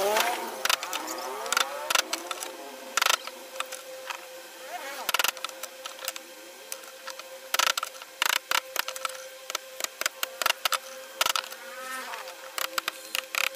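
Irregular sharp knocks and clicks of wood-carving tools: mallet taps on a chisel and wooden-handled chisels and gouges set down and shifted on the carved wooden panel. A steady buzzing hum runs underneath.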